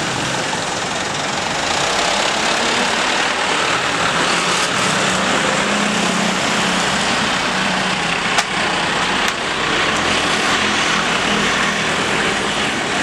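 Airbus A330's jet engines at takeoff thrust, a steady roar as it rolls down the runway and lifts off. Two sharp clicks come about eight and nine seconds in.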